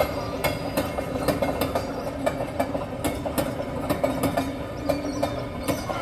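A train running on rails: a steady engine hum with regular clicking, about three clicks a second, like wheels passing over rail joints.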